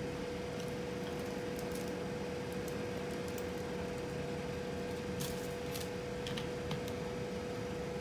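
Faint clicks and crinkles of a plastic water bottle, its screw cap and a plastic bag being handled, with a short cluster of crackles about five to six seconds in, over a steady background hum.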